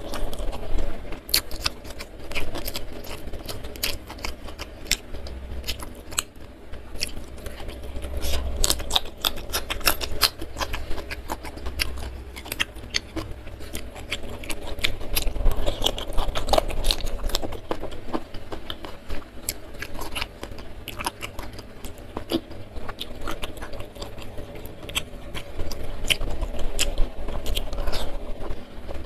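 Close-miked chewing and biting of fried chicken and rice eaten by hand, with many sharp crunchy and wet mouth clicks.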